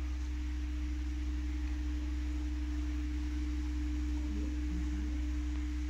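A steady low hum with a single steady mid-pitched tone over faint hiss. It holds unchanged throughout.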